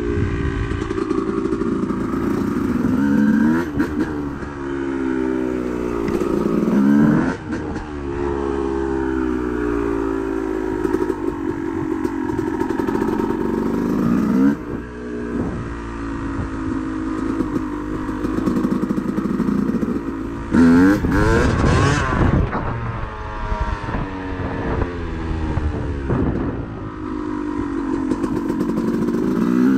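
Dirt bike engine under way, its pitch rising and dropping back over and over as the throttle is worked and gears change. A loud rushing clatter comes about two-thirds of the way through.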